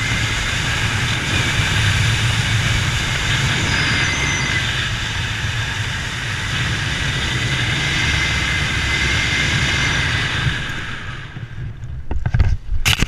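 Steady vehicle rumble with a faint high whine, fading about eleven seconds in, followed by a few sharp knocks near the end.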